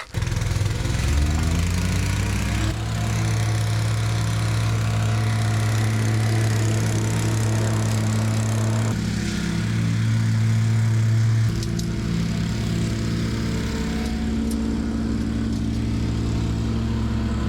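Engine running: it revs up over the first couple of seconds, then holds a steady speed, a little louder between about nine and eleven and a half seconds in.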